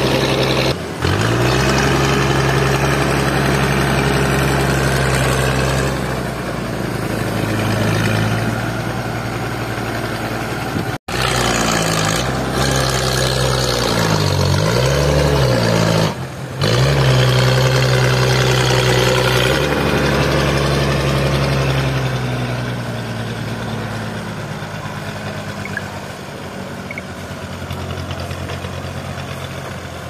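Toyota forklift engine running while it moves a large log, its pitch rising and falling several times as it is revved. The sound cuts out briefly a few times and grows quieter toward the end.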